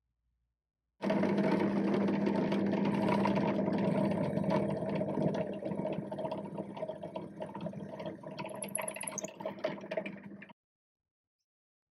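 Drill press motor running while a twist bit drills through a small wooden crank-handle arm, with a steady hum. It starts suddenly about a second in, grows quieter in the second half and cuts off suddenly near the end.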